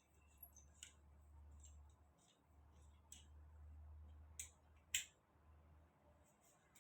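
Faint scattered clicks and taps from hand tools working on a door, with a few sharper clicks about a second in and around three, four and five seconds in, over a low rumble.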